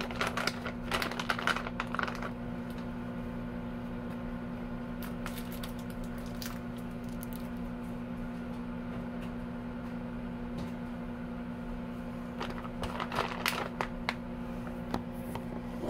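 Microwave oven running with a steady hum, with baked potatoes inside. A plastic bag of bacon bits crinkles as it is handled during the first two seconds and again near the end.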